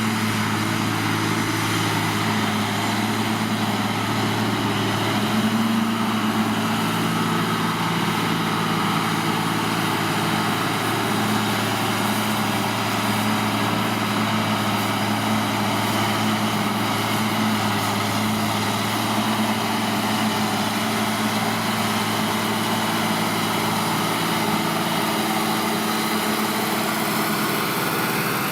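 New Holland tractor's diesel engine running steadily at constant speed while pulling a Kverneland plough through a field.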